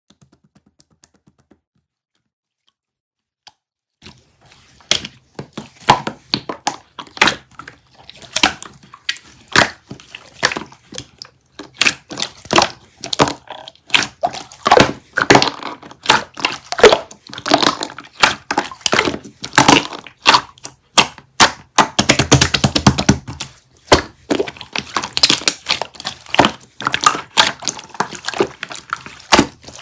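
Near silence for about four seconds, then an irregular run of short taps, knocks and crackles as something is handled, with a denser stretch of crackling a little past two-thirds of the way through.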